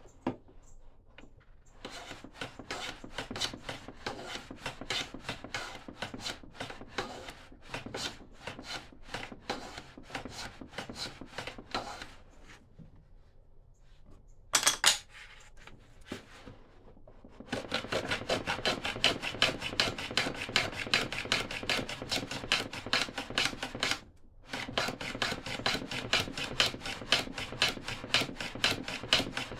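A hand tool worked on wood in repeated back-and-forth strokes, at first about two or three a second. After a pause and one loud scrape, the strokes come faster and louder, with a brief break near the end.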